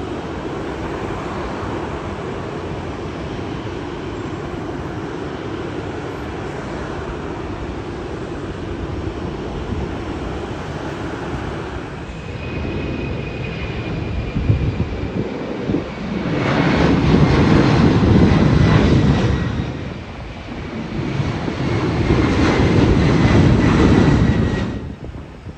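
Jet airliner's engines running as it passes, with a high whine that slowly falls in pitch over the second half. Two loud surges of rushing noise come near the end.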